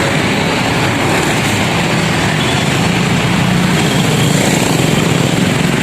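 Bus engine running steadily, a loud, even mechanical noise.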